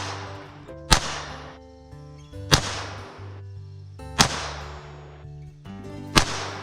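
Four sharp shots from the Clerke First .22 long rifle revolver, spaced about a second and a half to two seconds apart, each with a short fading echo. Steady background music plays underneath.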